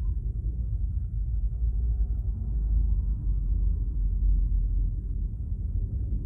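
Low, steady rumble inside a stationary car's cabin, slightly uneven in loudness, with no distinct events.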